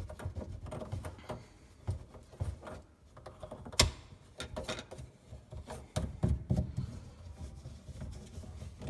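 Scattered small clicks and knocks of hands and tools handling the sink's drain fittings, with one sharp click about four seconds in.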